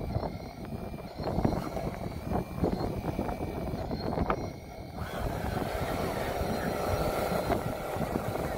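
Radio-controlled model bulldozer driving over loose dirt, its electric drive adding a faint steady motor hum from about halfway in, over a low rumble with scattered knocks.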